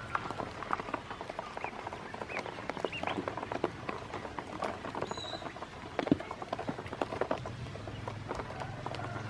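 Ducklings dabbling and pecking at feed in a shallow plastic basin of water: many quick, irregular taps and small splashes, with a few short peeps.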